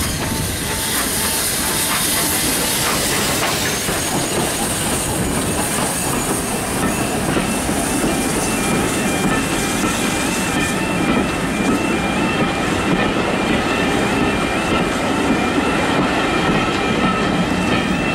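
GER Y14 (LNER J15) 0-6-0 steam locomotive No. 564 working past close by with its train, then the coaches' wheels clattering steadily over the rail joints, slowly getting louder. A level crossing warning alarm beeps in an even rhythm behind the train from about six seconds in.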